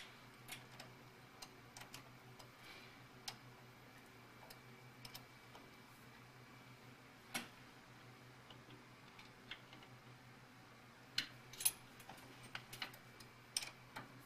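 Scattered light metallic clicks and taps as a hex key is fitted to and worked on the lathe tool-holder screw, with the centre gauge handled at the tool. A faint steady low hum runs underneath.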